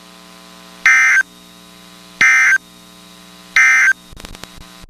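Emergency Alert System end-of-message signal: three short, identical buzzing data bursts about a second and a half apart, marking the end of a severe thunderstorm warning. A few clicks follow near the end over a steady low hum.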